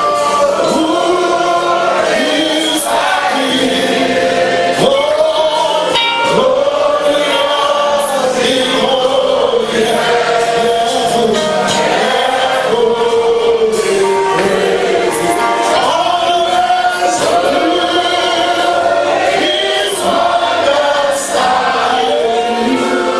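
Choir singing gospel music, several voices holding and sliding between sustained notes.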